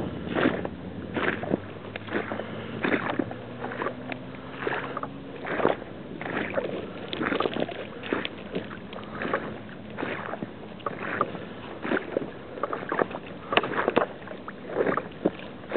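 Irregular crunches on frozen snow and thin ice, about one to two a second: steps breaking the frosty crust.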